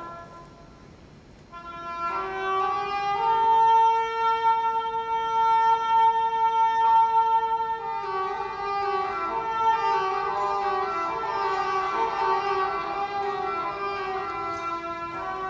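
Symphony orchestra playing a slow, sustained passage. It goes soft for a moment, held chords swell in about two seconds in, and one high note is sustained for several seconds before the parts begin to move.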